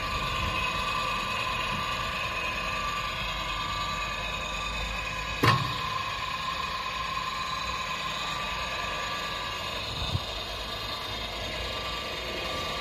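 Electric agitator motor on a tank lid running steadily with an even whine. A sharp knock about five and a half seconds in and a lighter one about ten seconds in.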